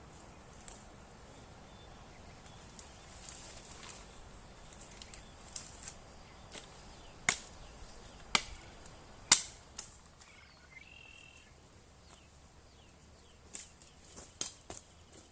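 Steady high-pitched insect chirring, broken by scattered sharp clicks and snaps at irregular intervals. The loudest snap comes about nine seconds in, and there are a few short chirps around eleven seconds.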